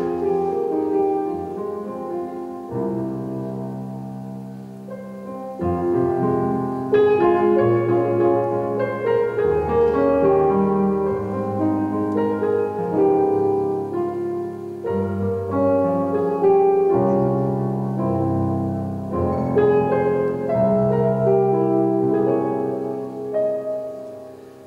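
Piano playing the instrumental introduction to a slow song, a melody over chords that grows fuller about six seconds in.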